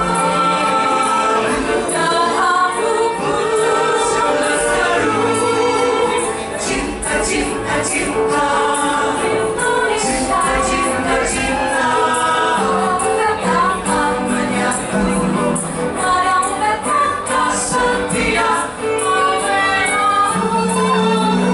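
Mixed choir of women and men singing together into handheld microphones, amplified through a PA, with several voice parts sounding at once.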